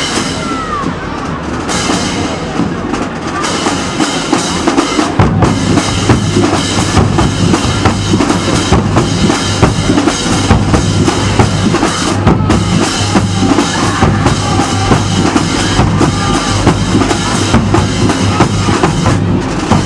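Marching band drumline playing a fast, dense percussion cadence on snare drums, tenor drums and marching bass drums. About five seconds in a deep bass-drum tone comes in and the playing gets louder.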